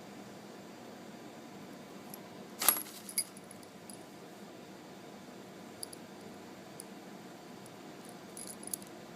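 A few sharp metallic clicks and clinks over a steady hiss, the loudest pair about two and a half to three seconds in and a smaller cluster near the end.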